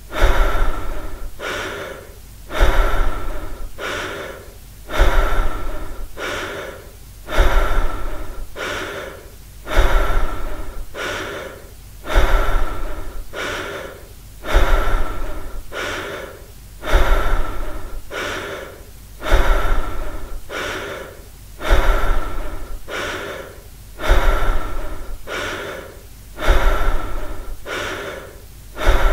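A person breathing heavily and evenly, one breath about every two and a half seconds. Each breath starts with a sudden loud intake and then tails off.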